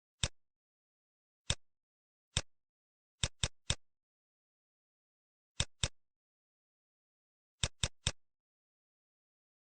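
Computer mouse clicking: about eleven short, sharp clicks at an irregular pace, some in quick runs of two or three, with dead silence between them.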